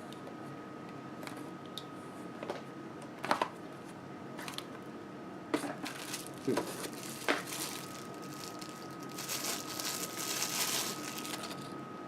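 A taped-shut knife box being opened by hand: scattered sharp clicks and taps of the box and knife being handled, then a longer stretch of crinkling packaging about nine seconds in.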